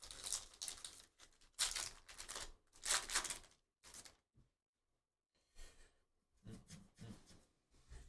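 A Topps Heritage baseball card pack wrapper being torn open and crinkled in three loud rustling bursts over the first few seconds. After a short pause come fainter rustles of the cards being handled.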